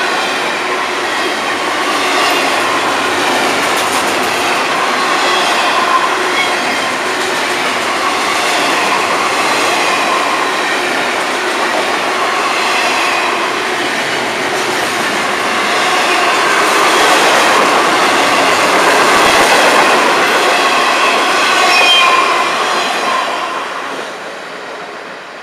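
Double-stack intermodal freight cars rolling past on steel rails: a steady loud rumble of wheels on track, with short high squeals now and then. The last car goes by near the end and the sound fades away.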